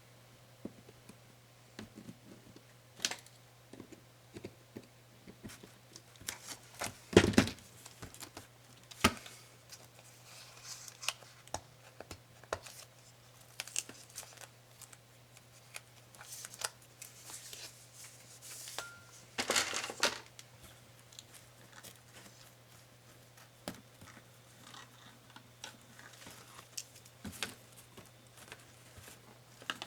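Hands taking apart laptop parts: scattered clicks, taps and rustles of small plastic and metal pieces, with two louder rustling scrapes, about seven seconds in and again around twenty seconds. A faint steady low hum runs underneath.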